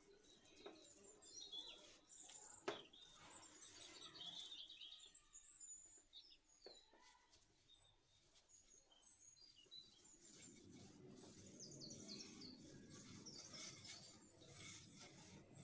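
Faint birds chirping in the background. Over them comes the soft rolling and rubbing of a wooden rolling pin flattening bread dough, with a sharp knock about three seconds in and another lighter one near the middle.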